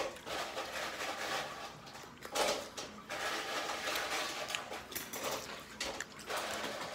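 Close-up chewing and mouth noises of a man biting and eating a strip of meat off a plastic fork, in irregular bursts rather than a steady rhythm.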